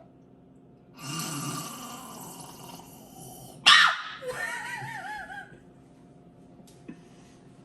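A person making silly mouth noises: a long breathy hiss, then a sudden loud squeal, then a warbling call that wavers up and down in pitch.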